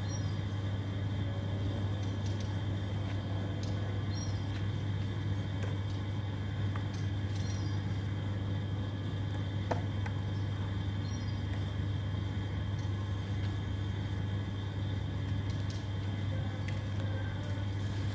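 Steady low hum with no change in pitch or level, with a few faint high chirps and light clicks over it.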